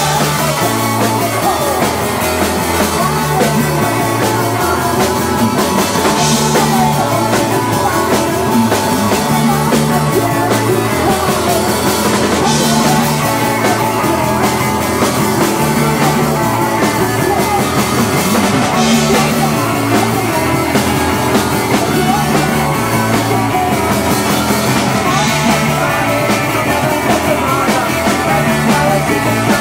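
Live punk rock band playing at full volume: electric guitar, drum kit and a woman singing into the microphone, with a steady driving beat.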